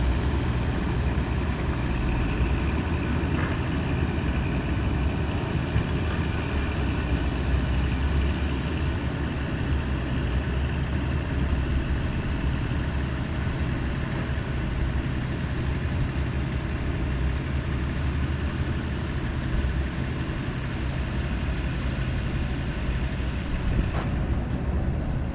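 Heavy diesel engine running steadily, a deep, even rumble that holds the same pitch, with a few sharp clicks about a second before the end.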